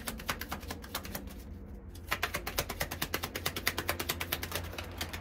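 A deck of cards being shuffled by hand: a rapid run of light card clicks, about ten a second, with a short pause about a second and a half in.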